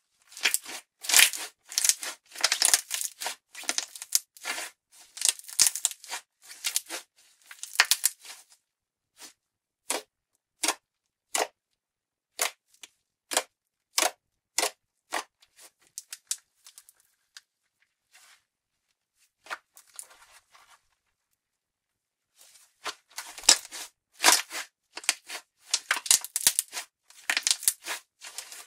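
Thick glittery slime being squeezed, pressed and pulled by hand, giving rapid crackles and pops. About a third of the way in the crackling thins to single clicks, roughly one every 0.7 s, then falls away. It stops for a moment and comes back dense near the end.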